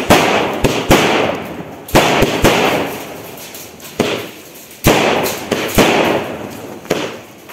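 Multi-shot sky-shot firework cake firing: sharp bangs at irregular intervals, often one or two a second, each followed by a crackling hiss that dies away. The shots thin out and grow quieter near the end.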